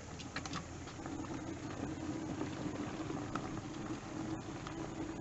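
Wood fire burning under a steamer pot of tamales: a steady rushing noise with a few sharp crackles, most of them about half a second in.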